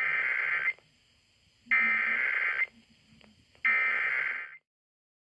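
Emergency Alert System SAME header: three bursts of digital data tones, each about a second long with about a second's pause between them, coding the start of a Child Abduction Emergency alert.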